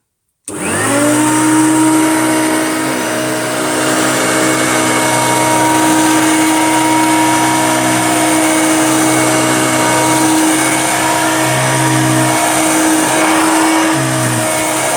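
Hoover Junior upright vacuum cleaner switched on about half a second in, its motor spinning up quickly and then running steadily with a loud whining hum as it sucks up dog hair and dirt. The pitch wavers briefly a couple of times near the end.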